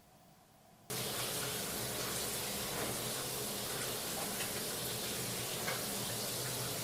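A steady hissing noise cuts in abruptly about a second in, after near silence, and holds evenly.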